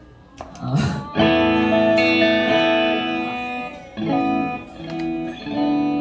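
A guitar plays chords that are left to ring. A long chord starts about a second in, and two shorter chords follow after it.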